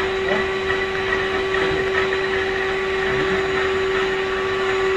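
Vacuum cleaner running with a steady, unchanging whine.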